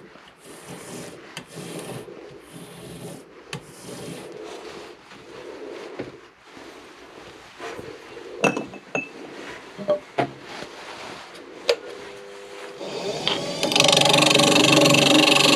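Rhythmic rasping strokes on a block of wood, then a few sharp knocks and clicks of tools being handled. A couple of seconds before the end, a woodturning lathe starts and runs steadily, much louder than what came before.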